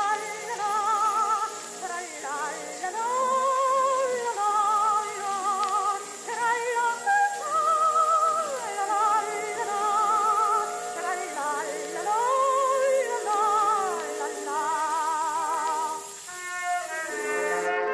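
Background music: an old recording of a solo singer with a wide, regular vibrato, sliding between notes.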